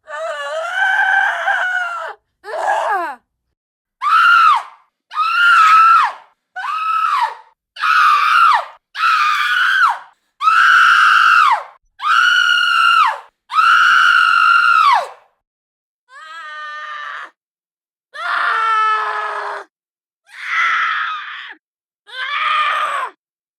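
A woman screaming and wailing in a frenzy, over and over: about fourteen separate high cries, each a second or so long and most dropping in pitch as it ends, with short silences between them.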